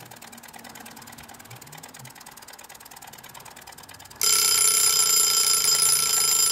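Chicken-shaped wind-up kitchen timer ticking rapidly, then its bell suddenly ringing loud and steady about four seconds in: the timer going off to say the cooking time is up.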